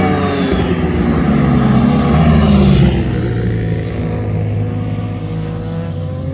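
Several sport motorcycle engines on a racetrack, their pitch falling then rising again as the riders shift through the gears in the curves. The engine sound is loudest about two to three seconds in.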